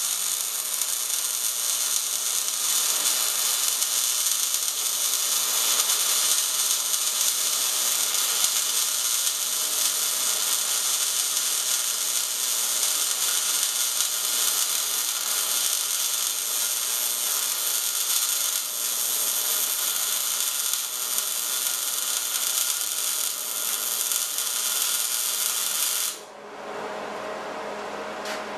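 MIG welding arc laying a fillet bead on a steel T-joint: a steady, even sizzle that cuts off suddenly a couple of seconds before the end as the arc is stopped.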